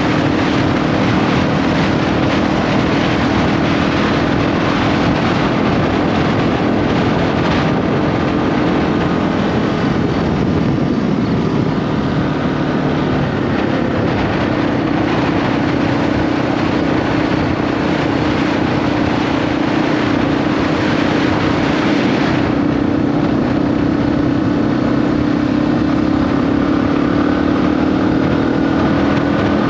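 2021 Yamaha XT250's single-cylinder engine running steadily at cruising speed, heard through the camera's own built-in microphone under a dense rush of wind and road noise. The engine note dips a little about halfway through, then holds steady again.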